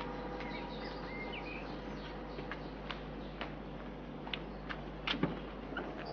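Outdoor ambience with a steady background hiss, a few short bird chirps, and scattered sharp clicks, with a couple of louder knocks about five seconds in.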